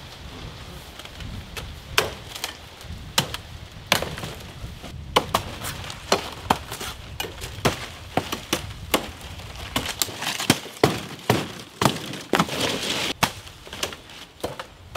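Machete blows chopping through palm frond stalks: a long, irregular series of sharp strikes, starting about two seconds in, with the fronds rustling between some of the blows.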